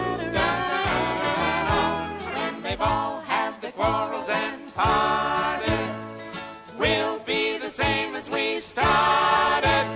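A group of adult and children's voices singing a song together, with piano accompaniment.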